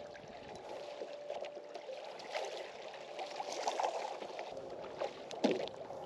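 Water splashing and slapping against a small skiff's hull as a hooked striped bass is reeled in to the boat and grabbed, with a louder splash about five seconds in. A faint steady hum runs underneath.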